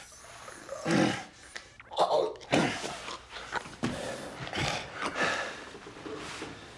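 Two men fighting: a man's strained grunts and groans, several in a row, with heavy thuds in between.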